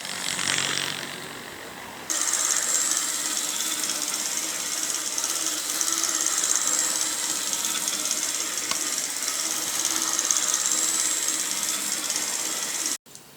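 OO gauge model locomotive running on its track: a steady small electric motor whir with a high hiss from the wheels and gears. It gets louder about two seconds in and cuts off suddenly near the end.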